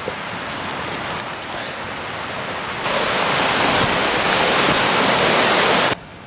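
Steady rushing-water hiss, like a creek or waterfall. It gets louder about three seconds in and cuts off suddenly near the end.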